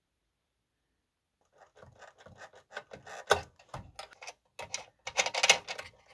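Fingers handling the knurled metal coaxial connectors and cables of a signal generator's plug-in modules: scratching, rubbing and small metal clicks. It starts about a second and a half in, with a sharper click about halfway and a louder scrape near the end.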